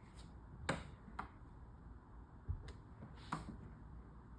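A few faint, separate clicks and knocks, about five in four seconds, the sharpest one under a second in, with a dull low thud near the middle.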